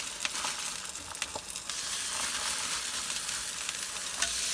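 Eggs frying in a pan: a steady sizzle with small crackles. A plastic bag rustles during the first couple of seconds.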